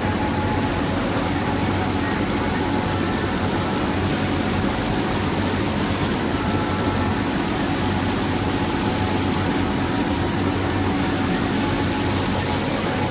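Laser cutting machine running: a steady mechanical hum with a constant hiss over it.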